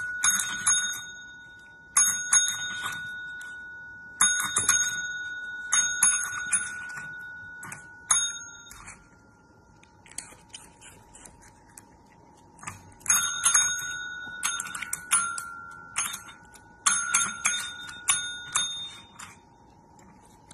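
Two pet call bells (paw-print desk bells) dinged repeatedly in quick flurries of several strikes, each ring fading slowly. Near the middle there is a quieter stretch of light taps without ringing before the flurries start again.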